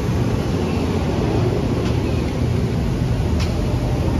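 Budd M3 electric multiple-unit train running past and away on the track, a steady low rumble of wheels on rail with a couple of light clicks.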